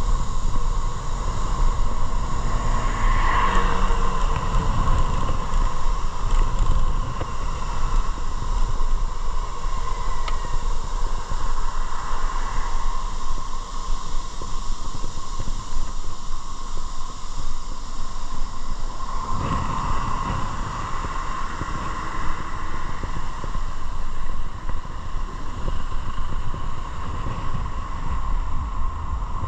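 Motorcycle being ridden: steady engine and road noise with a constant low rumble, swelling briefly a few seconds in and again about two-thirds of the way through.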